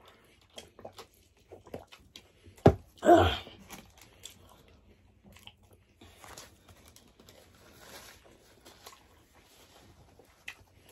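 Close-miked eating sounds: chewing, biting and crunching on burger and chicken wings, with scattered small clicks. About three seconds in, a sharp knock is followed by a brief louder rush of noise.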